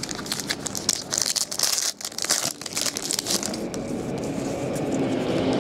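Foil trading-card pack wrapper crinkling and crackling as it is torn open and handled, a dense run of small crackles that thins out after about three and a half seconds. A low rumble builds toward the end.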